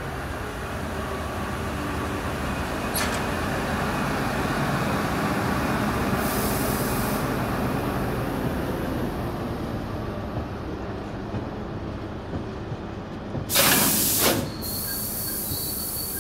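Small SBB shunting tractor hauling a train of loaded ballast wagons past, the wheels rolling steadily over the rails and building to the loudest point as the wagons go by. About thirteen and a half seconds in there is a sudden loud sharp noise lasting about a second, and thin high wheel squeals follow near the end.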